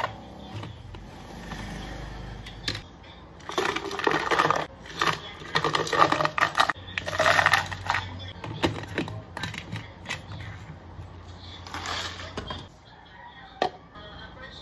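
Ice cubes rattling and knocking inside a plastic bottle of milky iced coffee as it is shaken, in irregular bursts that are loudest in the middle, over a faint low hum.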